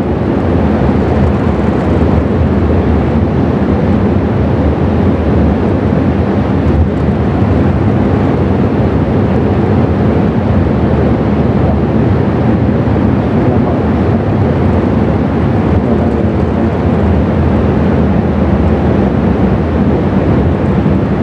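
Steady, even rushing noise with a faint low hum and no voice.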